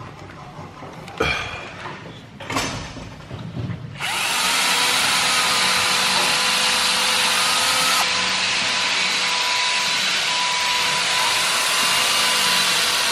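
A few light knocks, then about four seconds in a cordless DeWalt drill starts up and runs steadily, boring a hole through the wooden forend of a muzzleloading longrifle stock, the pin hole for a barrel lug.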